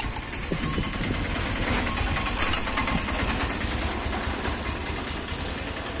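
Metal clinks from a key blank and small steel vise clamp being handled and a spanner set down, with one sharp metallic clatter about two and a half seconds in, over a steady low hum.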